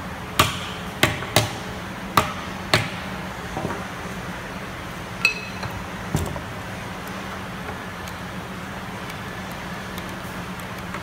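A hammer knocking five times in quick succession, tapping a wooden handle upright into a pallet-wood toolbox. About five seconds in comes a short ringing clink, then one more knock, over a steady low hum.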